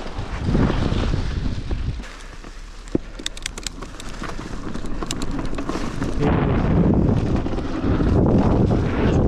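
Wind buffeting the microphone and tyre rumble of a mountain bike riding down a dirt trail. The rush drops for a few seconds about two seconds in, when a few sharp clicks come through, then returns louder.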